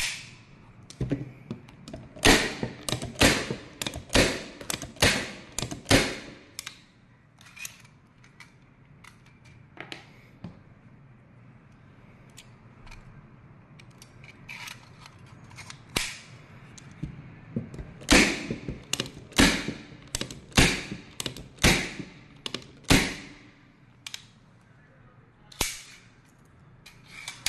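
Unitacker Light Force 6-in-1 manual staple gun firing 18-gauge brad nails and pin nails: sharp snapping shots in runs of roughly one a second, with quieter handling clicks between the runs.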